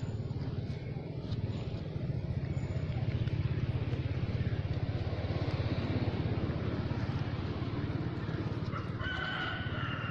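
Steady low rumble of road traffic. Near the end a pitched animal call of about a second stands out above it.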